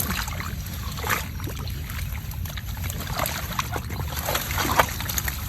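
Water splashing and sloshing in short irregular bursts over a steady low rumble.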